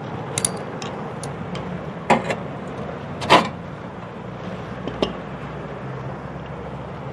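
Metal clinks and knocks as pliers and loose burner parts strike the sheet-metal frame of an upturned gas stove: about five sharp hits, the loudest about halfway through with a short ring, over a steady low background noise.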